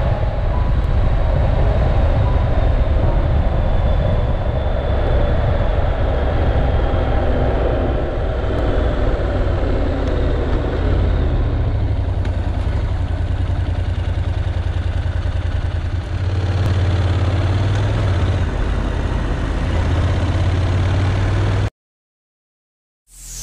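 Honda NC750S motorcycle's parallel-twin engine running under way, its note falling as the bike slows and then settling to a low steady hum. Near the end the sound cuts off suddenly, and after about a second of silence synth music begins.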